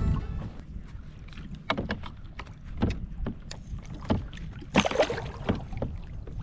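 Irregular knocks and clicks of fishing gear being handled aboard a kayak, over a low rumble of wind and water, with a louder cluster of knocks about five seconds in.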